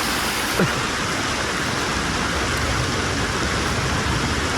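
Steady rushing of a stream, with a brief falling squeak just over half a second in.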